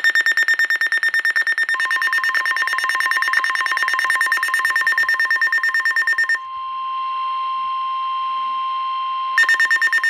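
Eton American Red Cross NOAA weather radio sounding an alert: a rapid pulsing electronic beep, joined about two seconds in by the steady single-pitch NOAA Weather Radio warning alarm tone, the signal that a warning follows. The beeping stops for about three seconds after the middle, leaving the long tone alone, then resumes near the end.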